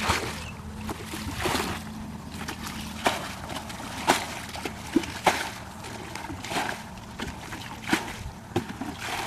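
Muddy ditch water splashing and sloshing as a bucket scoops it up and throws it out, roughly one splash every second: bailing the ditch to drain it.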